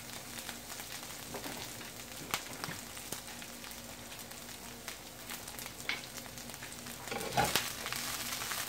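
Broccoli florets frying in hot olive oil in a nonstick skillet, a steady sizzle with small pops. Near the end a wooden spatula starts moving the florets around the pan, adding a few louder scrapes and knocks.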